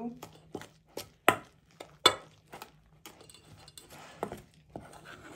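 A spoon stirring a thick mayonnaise dough mixture in a mixing bowl, knocking and clinking against the bowl in irregular clicks, with two louder knocks about one and two seconds in.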